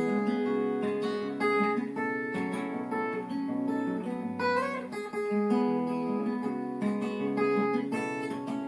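Acoustic guitar playing an instrumental break between the verses of a traditional English folk song.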